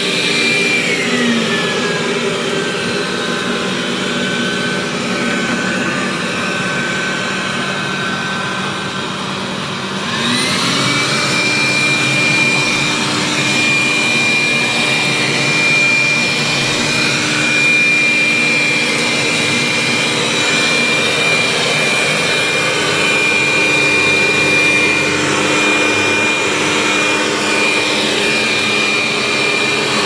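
Dreame Bot L10 Pro robot vacuum's suction fan whining steadily. About a second in its pitch falls as the motor slows. About ten seconds in it rises back and holds at the higher, louder speed: the carpet boost switching to maximum suction on the rug.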